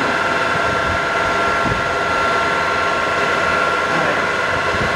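Mori Seiki MS1250 engine lathe running at its top spindle speed of 1800 RPM: a steady mechanical whine with a high, even tone.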